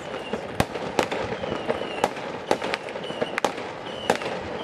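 Many consumer fireworks going off across a neighbourhood: irregular sharp bangs and pops, about two or three a second, over a steady crackling haze, with a few brief faint whistles.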